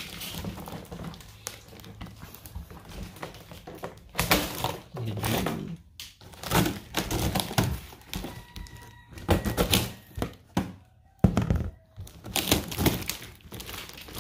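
Parcel and packaging being handled and opened: irregular thunks, knocks and clicks with some crinkling.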